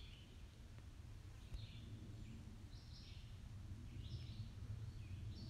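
A bird calling over and over, about five short calls at roughly one-second intervals, each stepping down in pitch, over a low steady rumble.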